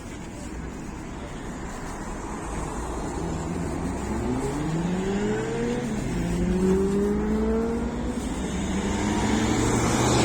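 MAZ-105 articulated city bus pulling away and accelerating: its diesel engine and drivetrain whine rising in pitch, dropping back at a gear change about halfway, then rising again. A short rush of noise near the end.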